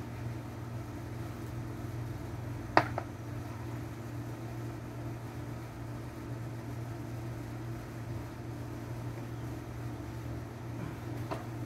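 A steady low mechanical hum, with one sharp knock a little under three seconds in and a fainter click near the end.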